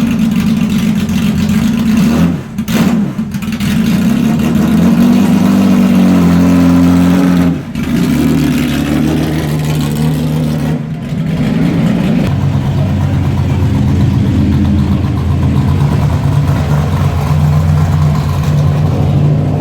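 Historic racing car engine running loud and being revved: the revs climb and drop back with brief throttle lifts about two and a half, seven and a half and eleven seconds in, then it runs steadily at a lower pitch.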